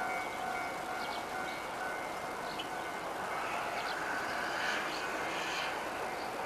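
Level-crossing warning bell ringing steadily while a KiHa 56 diesel railcar train approaches in the distance, with birds chirping now and then.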